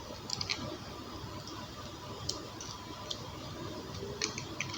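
A few faint, scattered clicks and ticks of a square-drive screwdriver turning the cord-clamp screws on a replacement extension-cord plug.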